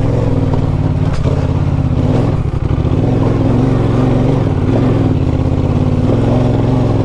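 Adventure motorcycle engine running at low, varying revs, with a brief dip as the throttle comes off about two and a half seconds in.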